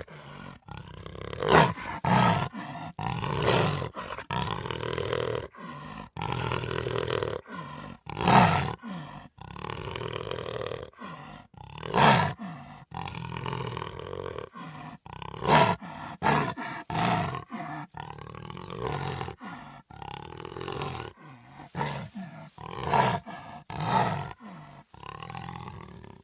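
A series of big-cat roars and growls from lions, tigers, cougars, jaguars and leopards, played one after another with short gaps between them. Some roars are much louder than others.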